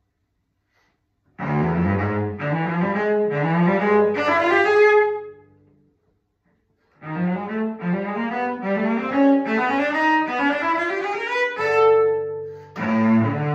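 Solo cello played with the bow. A phrase starts about a second and a half in, steps up in pitch and dies away; after about a second of silence the playing resumes with a longer run of notes, with a short break near the end.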